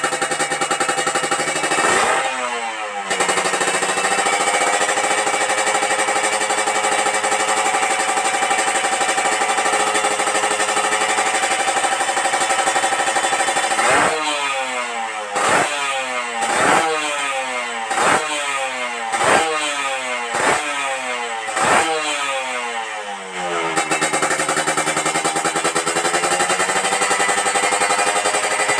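Kawasaki Ninja R 150's single-cylinder two-stroke engine idling while warming up, with a crisp, jingling exhaust note. It is revved once about two seconds in, then blipped seven times in quick succession, each rev rising sharply and falling back, before settling to a steady idle.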